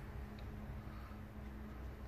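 Quiet room tone with a faint steady low hum; no handling or other event.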